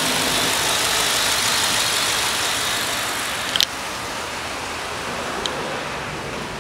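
Ford 7.3 L 'Godzilla' gasoline V8 idling steadily. A sharp click comes about three and a half seconds in, and after it the engine is heard more quietly.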